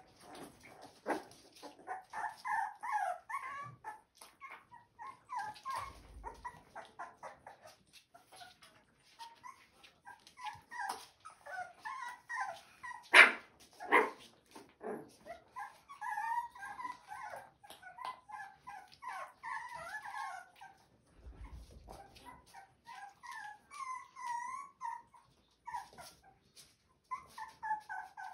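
Young Rottweiler puppies whimpering and squeaking over and over, short high wavering cries with a few yips. Two sharp knocks about halfway through.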